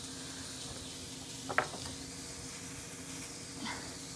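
Quiet room tone: a steady hiss with a low hum, and a single short click about one and a half seconds in, with a fainter one near the end.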